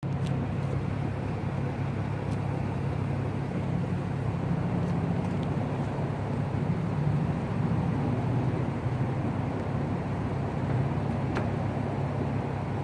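Infiniti G35 coupe's 3.5-litre V6 idling steadily, heard from low behind the exhaust, with a few faint ticks.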